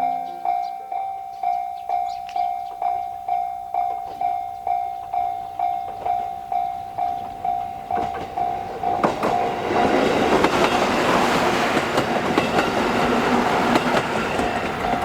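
Japanese level-crossing warning bell dinging steadily, about two and a half dings a second. About nine seconds in, a JR Kururi Line diesel railcar passes over the crossing, and the noise of its wheels and engine drowns the bell for about five seconds before the dings come through again at the end.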